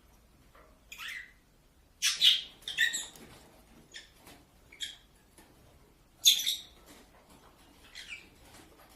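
Parrot calling: a string of short, high-pitched squawks, about seven in all, loudest at about two seconds and about six seconds in.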